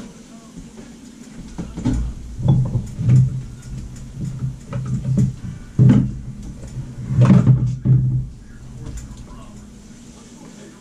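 Kitchen handling noises: several knocks and clatters in the middle stretch, such as a cupboard door and a frying pan being handled, with low muffled talk between them.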